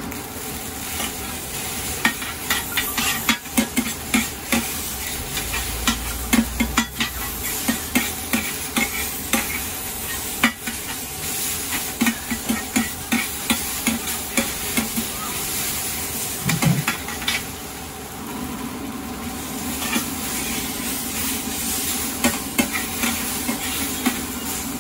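Stir-frying in a wok: a metal utensil scrapes and clanks against the wok in quick repeated strokes over a steady sizzle of frying food, easing off briefly about two-thirds through.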